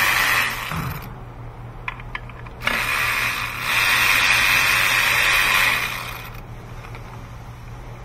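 Cordless power ratchet with a small socket whirring as it spins out throttle body bolts. One run stops about half a second in, a few small clicks follow, and a second run lasts about three and a half seconds.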